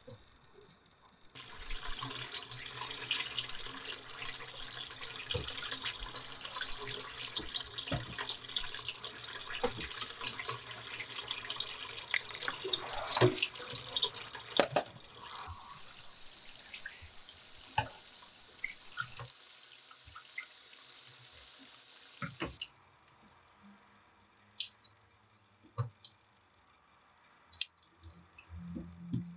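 Water running from a tap into a bowl. It starts about a second and a half in with a splashy, spattering sound, settles into a smoother steady stream about halfway through, and is shut off abruptly, leaving a few scattered drips and small ticks.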